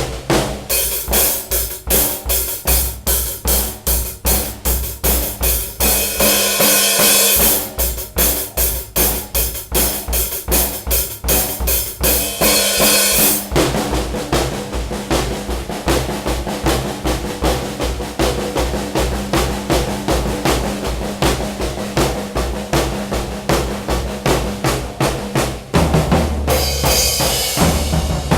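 Acoustic drum kit played in a steady groove: kick drum and snare hits, with cymbal crashes washing over it about a quarter of the way in, near the middle and near the end.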